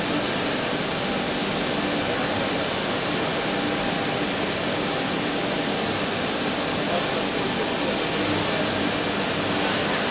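CNC wood router running, a steady, unbroken machine noise with a strong hissing top.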